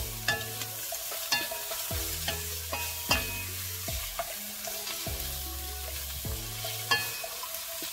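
Wooden spatula stir-frying sliced vegetables, mushrooms and fish cake in a hot stainless-steel wok: steady sizzling with irregular scrapes and knocks of the spatula against the pan.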